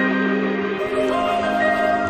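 Background music: a held low chord with a slow melody above it.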